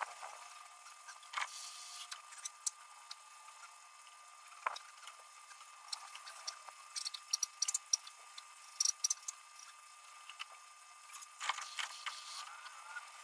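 Water in an above-ground pool being splashed and stirred: quick scattered splashes and clicks over a steady high hum.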